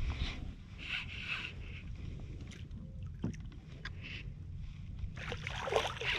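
Hooked redfish splashing and thrashing at the surface beside a kayak, with a louder stretch of splashing near the end. Low wind rumble on the microphone underneath.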